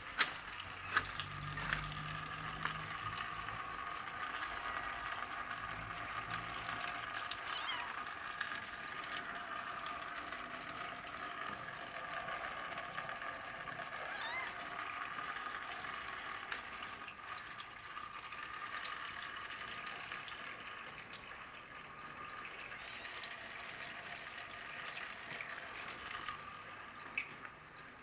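Freezing rain falling steadily on icy paving, a continuous fine pattering hiss.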